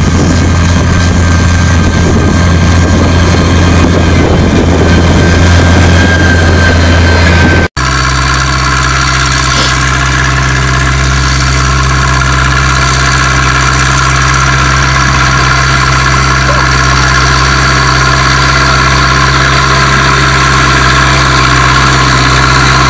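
Two tractor diesel engines in turn: first a large tractor's engine running steadily while pulling a tillage implement through a dusty field, then, after an abrupt cut about eight seconds in, an older tractor's diesel running steadily at low speed as it drives slowly over the field.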